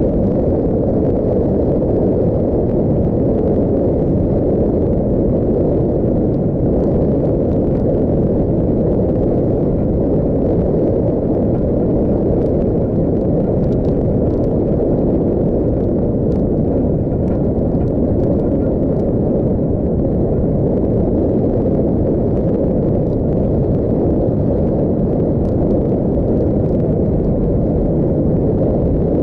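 Steady rumble of wind buffeting and road noise on the microphone of a camera mounted on a moving vehicle, at a constant level.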